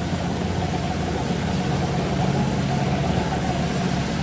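Motor scooter riding through shallow floodwater: its motor runs steadily while the front wheel throws up spray with a constant splashing hiss.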